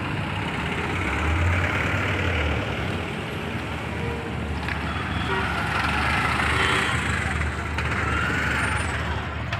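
Road traffic passing close by: the engines of SUVs and a three-wheeler tempo go past over a steady street din.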